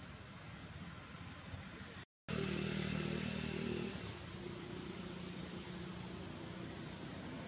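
Steady hum of a motor vehicle's engine running nearby. It drops out for a moment about two seconds in, comes back louder with a clear low drone for a couple of seconds, then settles to a fainter hum.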